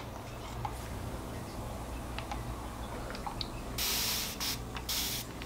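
Trigger spray bottle misting water onto wet hair: three short hissing sprays near the end, the first the longest, after a few faint clicks.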